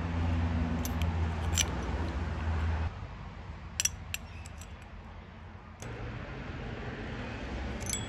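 Small chrome and steel parts clicking and clinking as they are handled and fitted together, a few sharp clicks with a quick cluster about four seconds in. A steady low hum sits underneath and drops away for a few seconds in the middle.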